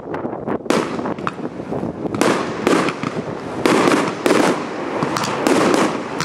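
Fireworks display: a dense stream of crackling pops from bursting aerial shells, with louder bangs every half second to a second.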